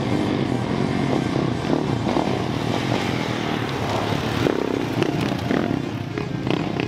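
450cc four-stroke single-cylinder off-road dirt bikes riding on a dirt trail, engine notes rising and falling as the riders work the throttle.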